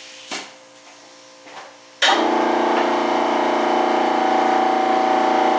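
Air compressor switched on: a knock, then about two seconds in the motor starts abruptly and runs with a steady, loud hum.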